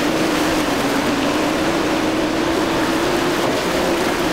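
Outboard motor of a center-console boat running at speed through rough inlet water, a steady drone that rises a little in pitch, over the hiss of breaking waves, wake spray and wind.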